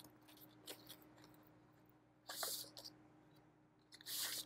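Faint handling of a vinyl LP's cardboard gatefold jacket and paper sleeves: a few light taps, then two brief sliding swishes of paper on card, one midway and one near the end.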